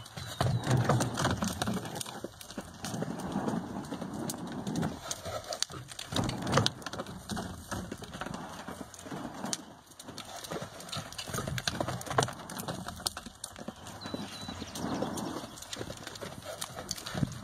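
Hoofbeats of a BLM mustang cantering around a dirt round pen: a running series of dull thuds on the soft ground.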